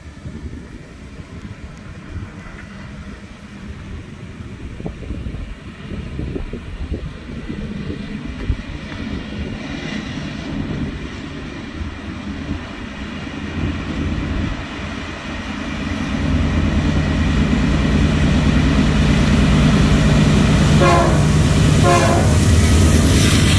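Diesel freight locomotive approaching head-on, its engine hum and rail noise growing steadily louder and much louder in the last several seconds. Near the end the horn gives two short blasts.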